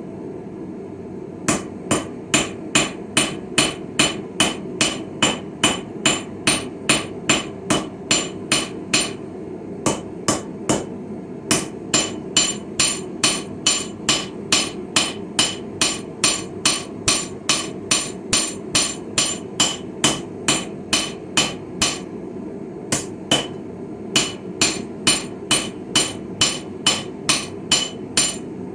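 Hand hammer striking hot steel on a Viking-style anvil while a chisel is forged: sharp ringing blows about two a second, in three runs with short breaks between them. A steady low hum runs underneath.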